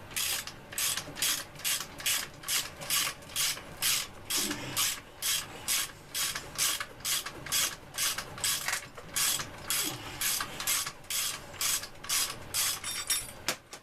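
Hand ratchet tool being worked back and forth to back out a screw, a short ratcheting rasp on each return stroke at about three strokes a second.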